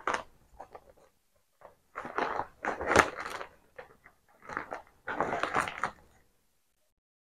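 Stiff gele head-tie fabric rustling and crinkling in short spells as it is pleated and folded by hand, loudest about two to three seconds in and again about five seconds in.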